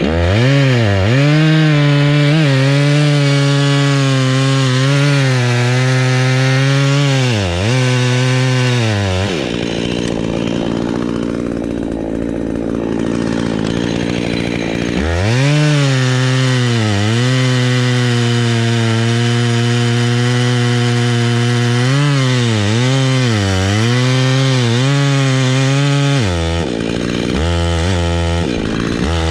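Chainsaw running at high throttle while cutting wood, its engine note dipping briefly in places. For a few seconds in the middle the engine tone drops out, leaving only a noisy hiss, and near the end the saw is blipped quickly several times.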